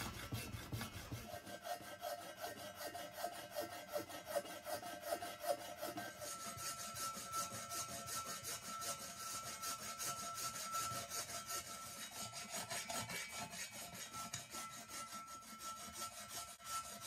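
Coarse aluminium hand file rasping back and forth in quick repeated strokes over the weld beads of a welded aluminium motorcycle cylinder head, dressing the welds down flush.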